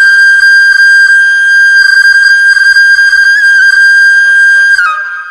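Flute music: a flute holds one long, high, steady note, then steps down and fades out near the end.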